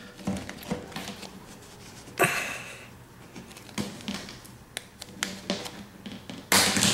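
Small screwdriver scraping and clicking against the washing machine's plastic drain hose fitting as it is pried loose, in irregular taps, with a louder scrape about two seconds in and another near the end.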